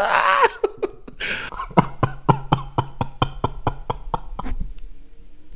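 Music with a steady clicking beat, about four beats a second, over a low held note; the beat thins out shortly before the end.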